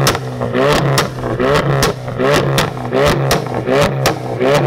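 Ford Focus RS's turbocharged 2.3-litre four-cylinder revved through its exhaust in quick repeated throttle blips, about one every three-quarters of a second. Each blip rises sharply in pitch, with sharp pops between them.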